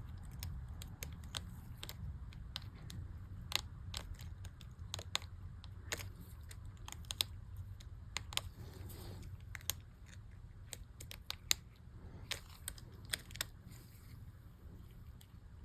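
Small, sharp plastic clicks and taps at irregular intervals as replacement MacBook keycaps are pressed and snapped onto the keyboard's key mechanisms, over a low steady hum.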